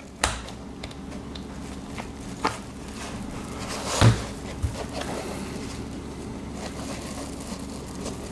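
Handling sounds of a bag's zipper and its small metal pull being worked by hand: a few sharp clicks and light rustles, with one louder knock about four seconds in, over a steady low hum.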